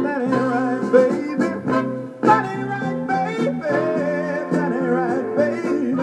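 Soul 45 rpm vinyl record playing on a turntable: a full band with a wavering, bending lead line over it.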